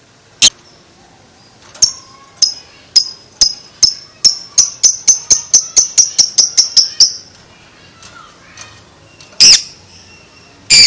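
Lovebird giving its 'ngekek' call: a run of sharp, high chirps that speed up from about two a second to about five a second, then stop after some five seconds. Two louder sharp sounds come near the end.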